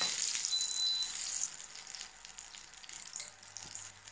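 Butter and oil sizzling and foaming in a hot nonstick frying pan. The sizzle is louder for the first second and a half, then settles to a quieter hiss.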